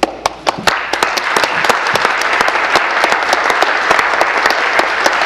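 Applause from the members of the legislature: a few scattered claps that build within the first second into steady, dense clapping.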